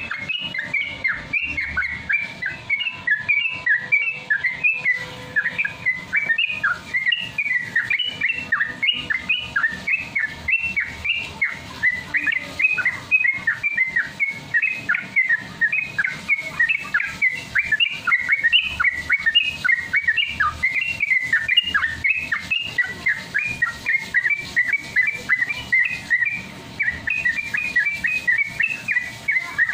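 Yellow-vented bulbul (trucukan) singing in a fast, unbroken run of short chirping and whistled notes, several a second: the rapid 'ropel' song that bird keepers train for.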